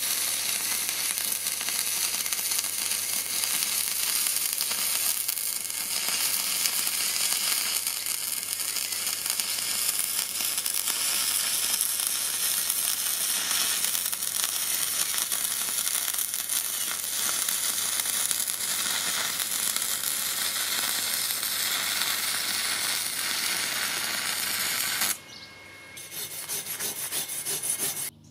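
Stick (MMA) welding arc of a Parkside PISG 80 A2 inverter welder burning a 2.0 mm electrode at 70 A on 3 mm steel, a steady sizzling crackle that stops abruptly about 25 seconds in. Then a fainter scraping as a wire brush is worked over the fresh weld bead.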